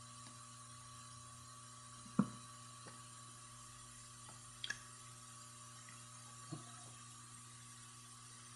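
Quiet steady room hum with a few light clicks from an iPad and a small prying tool being handled: one sharper tap about two seconds in, then two small ticks and a softer knock later.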